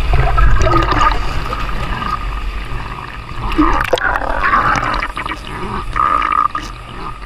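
Canyon river water flowing and splashing, with a brief knock about four seconds in.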